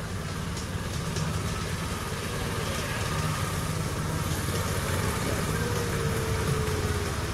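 A 7¼ inch gauge miniature railway train passing: a steady low rumble from the locomotive and its carriages on the track, growing a little louder over the first few seconds.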